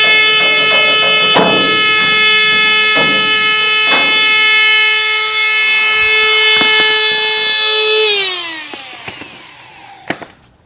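High-speed power cut-off tool running with a steady whine while cutting metal, with a few sharp ticks as it bites. About eight seconds in it is switched off and winds down, its pitch falling as it fades.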